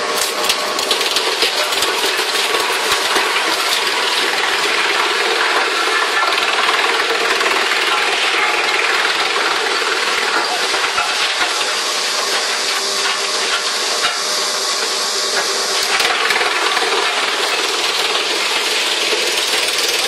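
Electric-motor wood chipper running under load, chipping wood with a loud, steady, dense clatter of many rapid clicks and a hiss.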